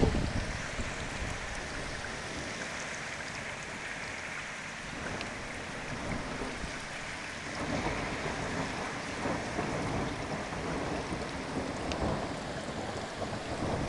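Thunder rumbling in a thunderstorm over a steady hiss of rain: one roll dies away right at the start, and another low rumble builds about halfway through.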